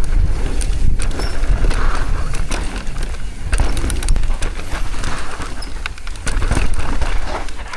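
Mountain bike descending a rough dirt trail at speed: a steady low rumble of wind and tyre noise, with the chain and frame rattling and knocking over bumps.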